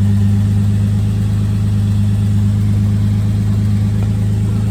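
Holden VS Commodore's 3.8-litre Ecotec V6 idling steadily, just started after its fuel lines were replaced.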